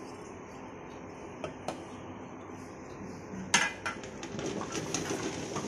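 Stainless steel cookware knocking and clinking: a sharp metal knock about three and a half seconds in, then a run of lighter clinks and clatters, after a stretch of low steady background with a couple of faint clicks.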